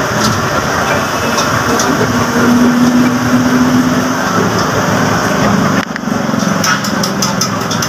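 A small engine running close by over steady busy background noise, with a steadier hum for a couple of seconds in the middle. A few light clicks come near the end.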